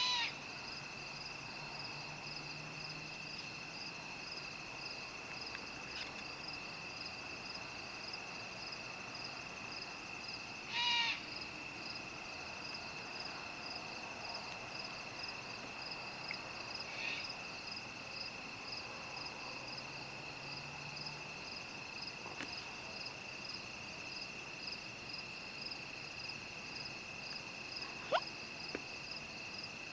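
An unidentified animal gives a short, harsh call three times: at the start, loudest about a third of the way in, and fainter a little later. Under it runs the steady, fast-pulsing chirring of night insects.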